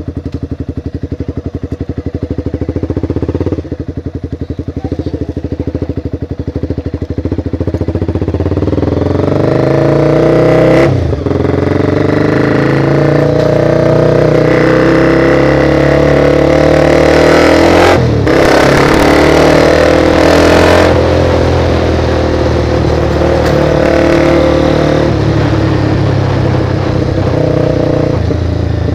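Motorcycle engine heard close up from the bike, ticking over at low revs at first, then pulling harder and louder from about eight seconds in. Its sound drops out briefly twice, at about 11 and 18 seconds, as gears change. Wind and road noise grow with speed.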